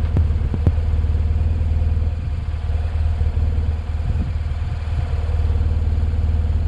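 BMW R1200RT motorcycle's flat-twin boxer engine idling steadily with the bike at a standstill: a constant low hum.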